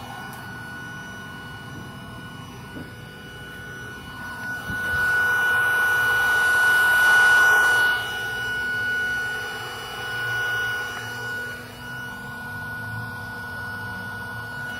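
Steady high-pitched whine with a rushing air hiss that swells about four seconds in, eases near eight seconds and rises again briefly later, heard while a car is being checked for a vacuum leak.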